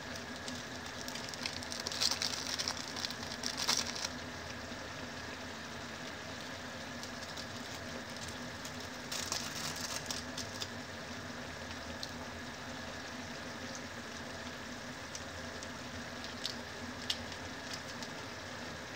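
Instant noodles simmering in a pan of boiling water, a steady bubbling patter. Plastic seasoning sachets crinkle as they are torn open and squeezed out over the pan, from about two to four seconds in and again around nine to ten seconds in.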